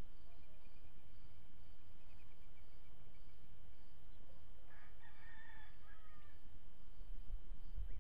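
A single bird call lasting about a second and a half, a little past halfway through, over a steady low rumble of wind on the microphone that turns gustier near the end. A few faint high chirps come in the first few seconds.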